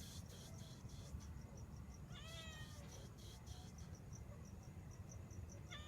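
A cat meows once about two seconds in with a falling cry, and starts another meow at the very end. Crickets chirp steadily throughout.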